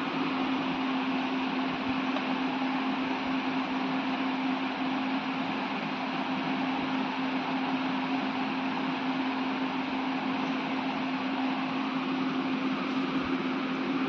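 Steady low hum over an even hiss, unchanging throughout, like a motor running in the room.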